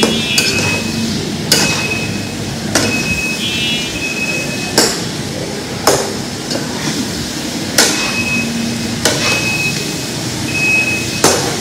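Metal ladle stirring food in a frying pan, knocking and scraping against the pan with sharp clinks about every one to two seconds and short squeaks between some of them.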